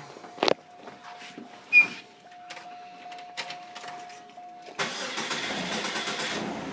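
2005 Chevrolet Cobalt being started: a few key clicks and a thin steady tone, then about five seconds in the engine cranks and catches with a loud burst, easing to a quieter steady idle near the end.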